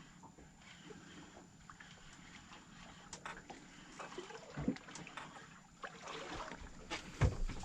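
Faint wind and water noise around a small fishing boat, with scattered light clicks and a couple of low knocks.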